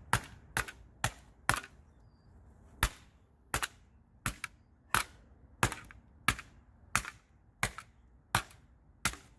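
A hammer striking the plastic parts of a printer repeatedly, about fourteen sharp blows, roughly one every two thirds of a second with a brief pause about two seconds in.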